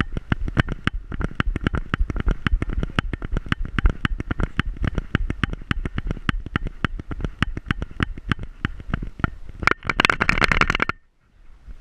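Rapid, regular knocks and thuds of a dog-mounted camera jolting with each stride as a Pointer runs across grass, about five a second. Near the end comes a second of dense rustling as the camera tips into the grass, which cuts off suddenly.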